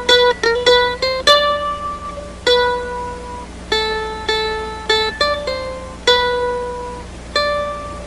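Background music: a plucked string instrument plays a slow melody of single notes, about two a second, each one ringing and fading.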